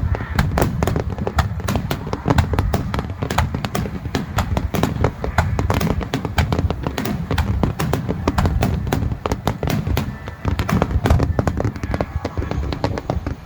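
Fireworks display: a dense, rapid crackle of sharp bangs, several a second, over a continuous low rumble of bursting shells.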